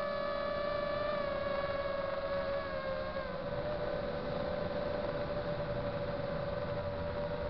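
FPV quadcopter's motors and propellers whining at a steady cruising throttle, one held tone with overtones that dips slightly in pitch about three seconds in as the throttle eases, over a low rumble of wind.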